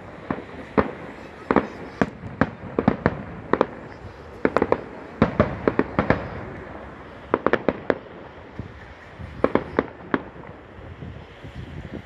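Aerial firework shells bursting in irregular clusters of sharp bangs, several in quick succession, then a pause. The bangs thin out near the end.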